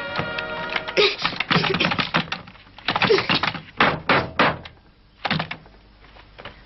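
Hands shaking the handle of a locked wooden door and knocking on it: two quick runs of rattles and knocks, then a single knock about five seconds in.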